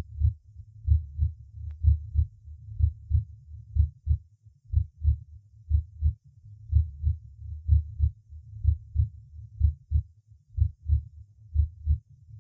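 Normal heart sounds recorded by auscultation at the xiphoid process, the tricuspid area: a low, regular lub-dub about once a second, with the first sound louder than the second.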